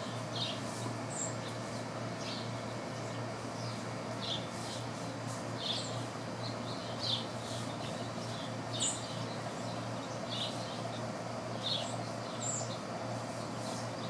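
Songbird chirps: about a dozen short, sharp high notes at irregular intervals, over a steady low hum.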